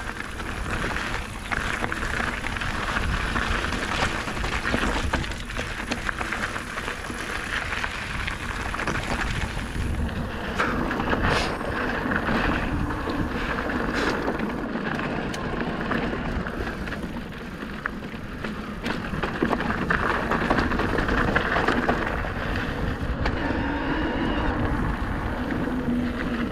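Electric mountain bike riding fast down a dirt and gravel trail: tyres rolling and crunching over the loose surface, with short clicks and knocks from the bike over bumps, and wind on the microphone.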